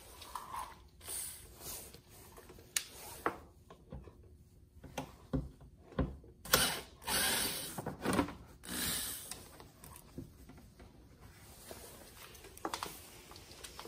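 Torx screws being turned out of a licence plate frame with a hand tool: scattered clicks and short scrapes of the bit and screws, with handling of the plastic frame.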